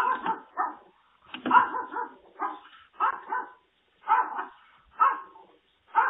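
A dog barking repeatedly, about one bark a second, heard through a doorbell camera's microphone.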